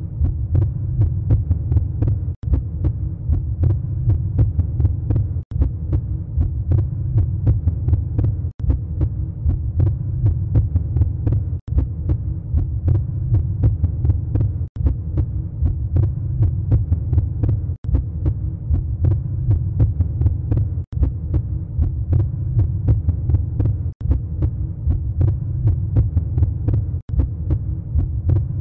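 Low, steady heartbeat sound effect laid over the animation, throbbing continuously and dropping out for an instant about every three seconds where the loop restarts.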